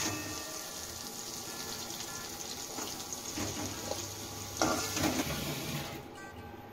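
Cubed potatoes sizzling in hot mustard oil in a metal kadai, with a flat metal spatula scraping and knocking against the pan a few times as they are stirred and lifted out. Near the end the sizzle drops away.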